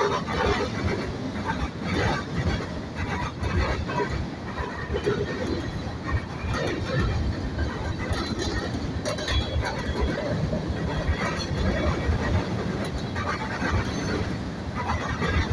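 Norfolk Southern mixed freight train rolling past, its cars' steel wheels clattering and knocking over the rail joints in a steady rumble.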